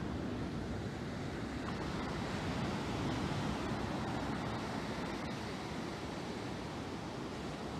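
Ocean surf breaking and washing up a sandy beach: a steady rush of waves that swells a little about three seconds in.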